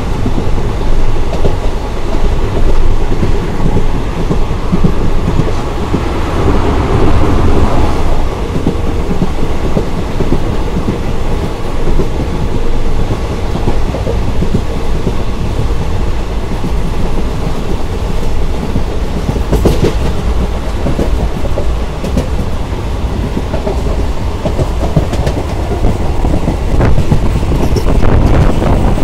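Indian Railways ICF passenger coach running at speed: a loud, steady rumble with the clickety-clack of the wheels over rail joints, heard at the open coach doorway.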